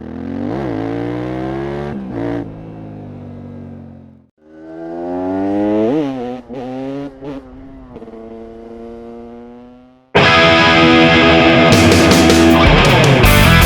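KTM 690 SMC R's single-cylinder engine through a LeoVince exhaust accelerating hard twice, pitch climbing with short breaks at the gear shifts, then fading away. About ten seconds in, loud rock music with distorted guitar cuts in.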